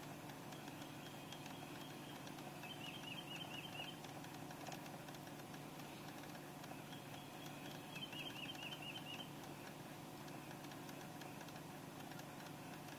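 Faint, rapid clicking from the passenger footwell of a 2004 Toyota Sienna, coming in two runs a few seconds long and about six seconds apart, over the van's low steady hum. The owner has been told it has something to do with the air conditioning.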